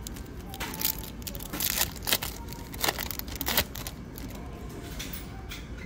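Foil Pokémon card booster pack crinkling as it is handled and torn open, in a run of short, sharp crackles over about three seconds.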